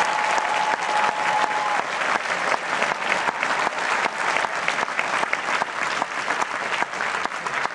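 Large arena crowd applauding, a dense wash of clapping. A steady high note rings over it for about the first two seconds.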